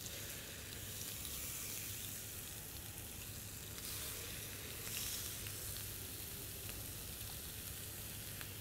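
Oiled, seasoned chicken breast pieces sizzling on the hot ribbed plate of a contact grill as they are laid down, a steady hiss with small scattered crackles.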